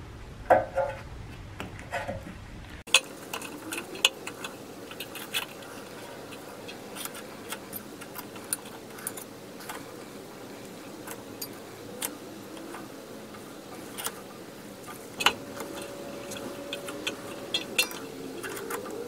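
Irregular metallic clicks and clinks from a screw-type brake caliper piston wind-back tool being turned by hand, winding the rear caliper piston back into its bore.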